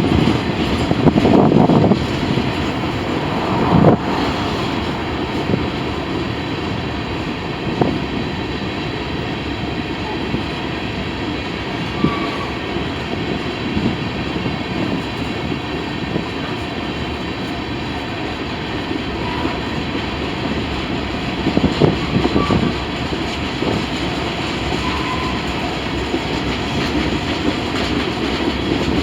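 Freight train cars rolling past: a steady rumble of wheels on rail with clicking over the rail joints and a few louder knocks.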